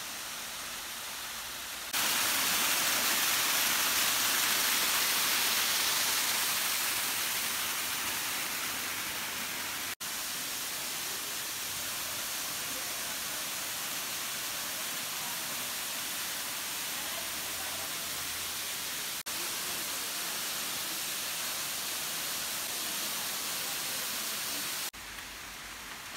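Waterfall: a steady rush of falling water, loudest for the first several seconds, with abrupt jumps in level a few times.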